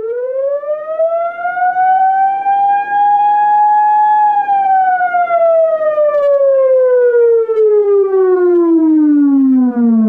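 Fyr-Fyter Penetrator police siren sounding a single long wail: the pitch climbs for about four seconds, then slowly falls for the rest of the time.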